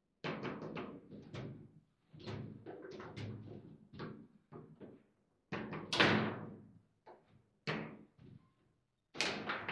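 Table football game in play: a rapid, irregular run of sharp knocks and clacks as the ball is struck by the rod-mounted figures and bounces off the table, with rods sliding and hitting the bumpers. The loudest crack comes about six seconds in.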